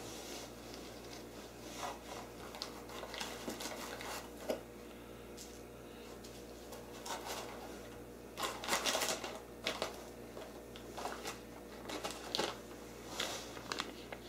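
Hands rummaging through a box of packed parts: plastic bags and packaging rustling, with small parts clicking against each other in scattered short bursts. The handling is busiest about nine seconds in and again near the end.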